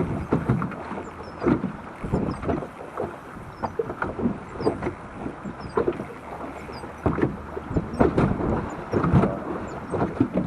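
Wind buffeting the microphone in irregular gusts, with river water lapping and splashing.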